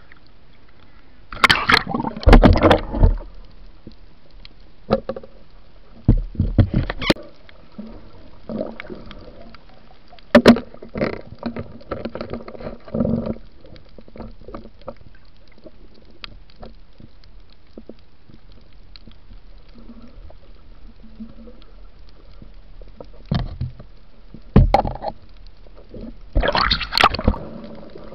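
Muffled underwater sound through a waterproof camera housing: irregular bursts of gurgling water and bubbles, with a few sharp knocks, over a low steady hiss.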